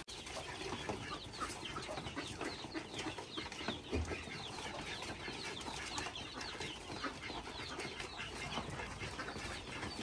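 A flock of chickens and other farm birds calling: many short, high chirps overlapping without a break, with some clucking. There is a soft knock about four seconds in.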